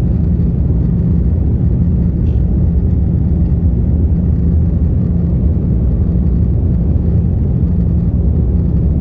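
Airbus A330 cabin noise over the wing during the climb after takeoff: engines and airflow make a steady low rumble with a faint hum.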